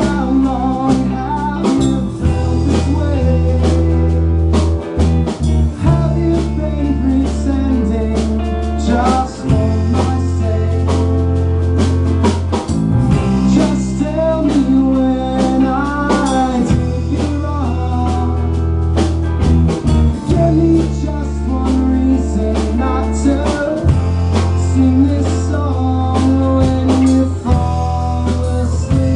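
A band playing a song live: guitar and drums over held bass notes that change every few seconds.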